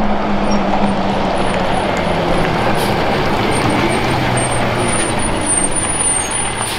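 Diesel engine and tyres of a white International medium-duty dump truck driving close past, its engine note falling in pitch as it goes by. A faint high squeal comes in near the end.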